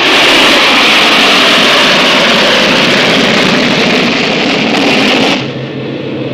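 Four-engine jet airliner flying overhead, its engines a loud, steady, hissing roar. It cuts off abruptly a little after five seconds into a quieter steady cabin drone with a low hum.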